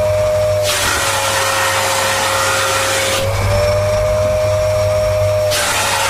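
Siemens Synchropower vacuum cleaner running with fur caught on its nozzle. Its motor whine is higher and the rush of air quieter while the fur seals the nozzle; about a second in the pitch drops and the air hiss returns as it comes free. The nozzle seals again around halfway and frees again near the end.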